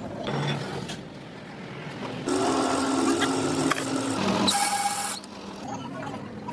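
Metalworking tool noise: scraping and rubbing, then a machine running steadily from about two seconds in, ending in a loud harsh burst near the five-second mark.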